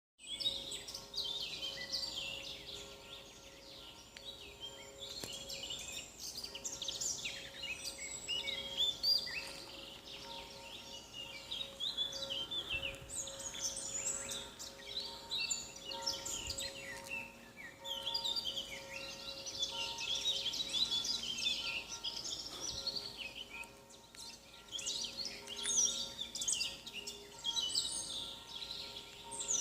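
Many small birds twittering and chirping together in a dense chorus of high, quick calls and trills that swell and ebb in waves. A faint steady hum of several tones sits underneath.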